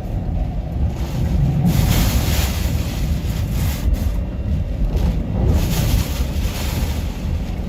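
Hurricane wind buffeting the microphone: a constant low rumble, with gusts of rushing hiss about two seconds in and again near six seconds.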